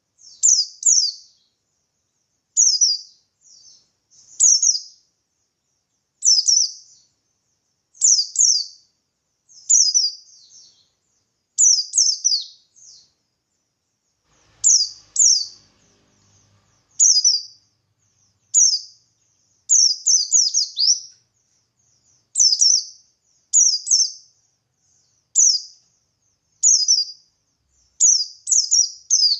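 Buxtoni white-eye (pleci) singing in the wild 'ngalas' style: short, high, rapid chirpy phrases of two or three down-slurred notes, repeated about every one and a half seconds.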